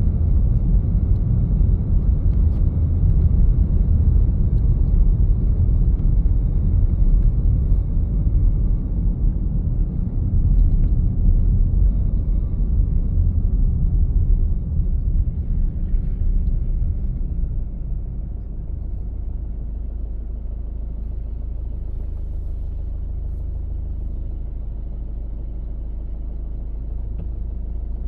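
Rumble of a car on the road: engine and tyre noise concentrated in the low end. About two-thirds of the way through it eases off into a quieter, smoother steady hum.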